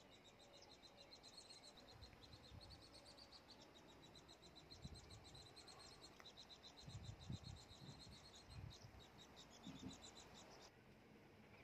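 Near silence with faint, rapid, high-pitched chirping from a small animal, which stops suddenly near the end. A few soft low thumps come in the middle.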